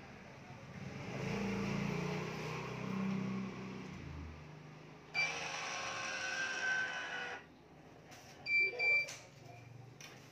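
Badminton string drawn through the racket frame with a rubbing hiss. About five seconds in, the digital stringing machine's electronic tensioner runs steadily for about two seconds as it pulls the string to tension, then gives two short beeps.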